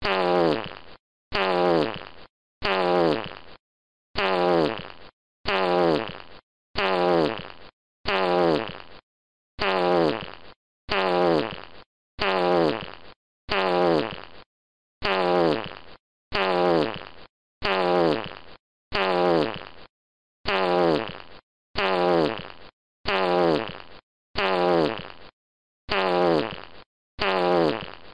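A fart sound effect played over and over in an even loop, one short fart about every second and a quarter. Each one starts sharply and falls in pitch as it dies away, with dead silence between them.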